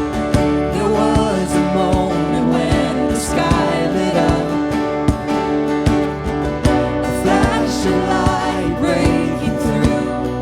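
Worship song music between sung lines: acoustic guitar strumming to a steady beat under sustained chords, with a wavering melody line over it.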